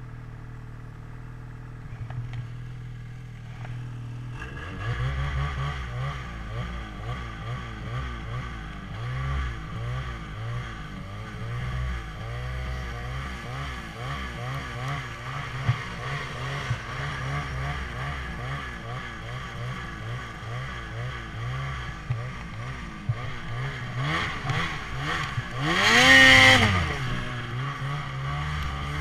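Ski-Doo Summit 800 snowmobile engine heard from the rider's seat. It idles steadily for the first few seconds, then pulls away and runs along the trail with the revs constantly rising and falling. Near the end there is one brief hard rev, the loudest moment.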